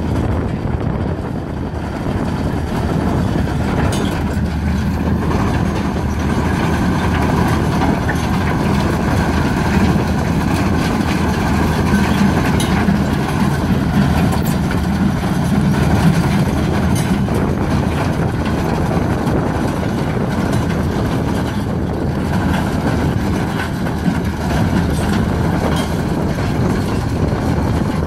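Tractor engine running steadily under load while its mounted implement works through stony ground, with a constant rumble and grinding and occasional sharp knocks from stones.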